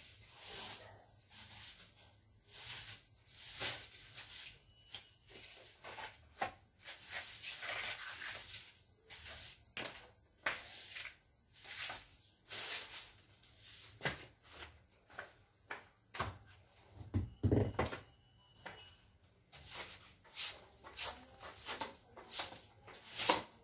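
Broom sweeping a hard floor in short, repeated swishing strokes, about one to two a second, with a dull thump about two-thirds of the way through.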